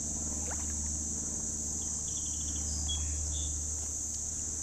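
Steady high-pitched chorus of insects, with a few faint short chirps about halfway through.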